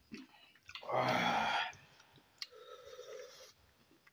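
A man lets out one loud, voiced sigh through the mouth about a second in, followed by softer breathing and small mouth clicks of chewing while eating with his hands.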